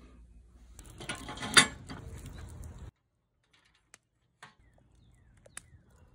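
Stainless steel wire grill basket rattling and clanking as it is closed and latched, with one loud metallic clank about a second and a half in. After it cuts off there are only a few separate sharp clicks.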